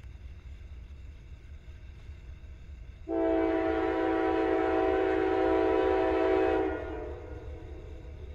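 Locomotive air horn of a Norfolk Southern AC44C6M diesel, sounding one long chord of several tones that starts abruptly about three seconds in and stops about three and a half seconds later.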